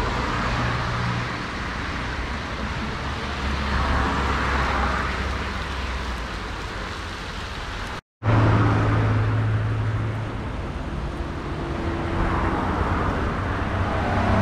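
Street traffic noise: a steady rumble with a low hum under it and vehicles swelling past twice. The sound drops out for an instant about eight seconds in.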